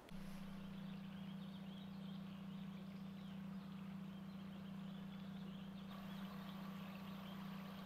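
A steady low hum that cuts in and out abruptly, with faint, scattered bird chirps.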